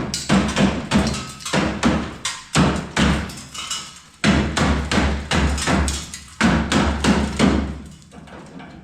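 A hammer striking sheet metal in steady blows, about two or three a second, with two brief pauses, and trailing off near the end. The blows are breaking the old rusted panel of a 2013 Chevy truck bedside loose from its drilled-out spot welds.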